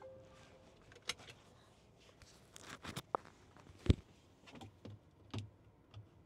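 A string of irregular clicks, knocks and rattles of things being handled inside a car's cabin, with one louder thump about four seconds in. A short steady tone sounds right at the start.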